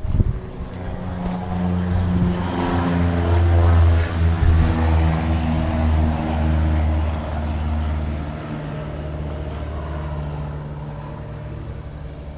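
A passing vehicle's engine drone that swells to its loudest about four seconds in, then drops in pitch and fades.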